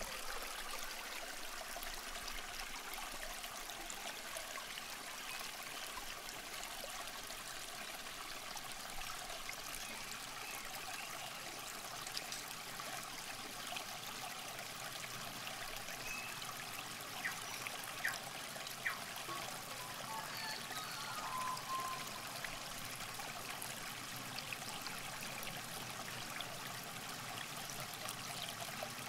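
River water trickling steadily along the bank, with a few faint ticks a little past halfway.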